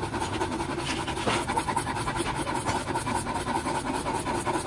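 Rapid back-and-forth scraping of an abrasive hand tool against the plastic edge of a car tail-light lens, smoothing down the repaired lens.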